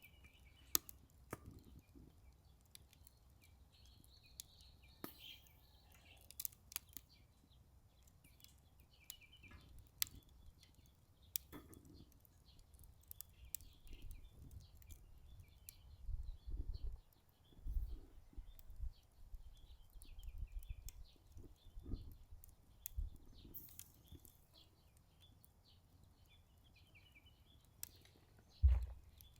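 Wood fire crackling in a Solo Stove Ranger fire pit, with scattered sharp pops and clicks. Small birds chirp on and off, and low wind rumble comes and goes through the middle stretch.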